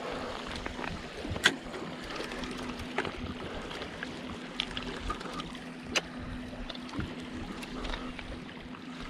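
Small waves washing over a rocky shoreline, with a steady low hum underneath and a few sharp clicks, the loudest about one and a half seconds in.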